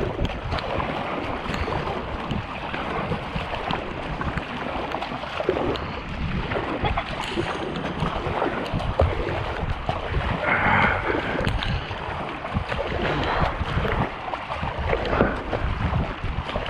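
Double-bladed kayak paddle dipping and splashing in repeated strokes while the kayak's bow wake rushes along the hull at speed, with wind rumbling on the microphone.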